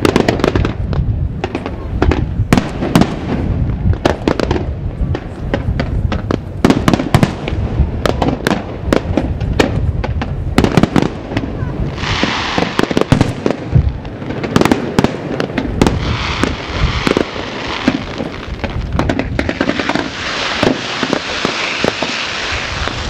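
Aerial firework shells bursting in rapid succession, a dense string of sharp bangs and pops, with a steady hiss joining in about halfway through.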